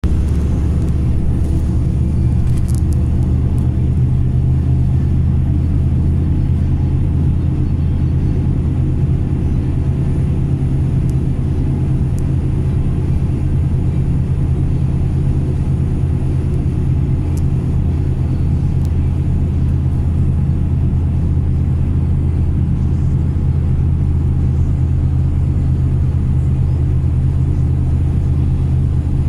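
A motor vehicle's engine running at a steady low hum that does not change in pitch or loudness.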